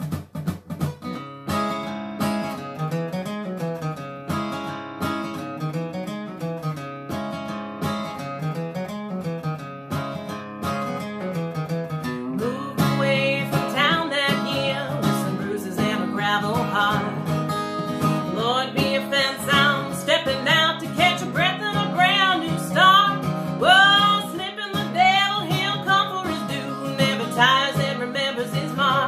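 Acoustic guitar playing an intro with a bass line that repeats about every two seconds; about thirteen seconds in a woman's voice starts singing over the guitar.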